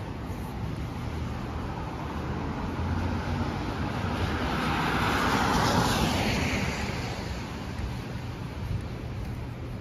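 A car driving past on a wet city street, its tyre hiss swelling to a peak about halfway through and then fading away, over a steady low traffic rumble.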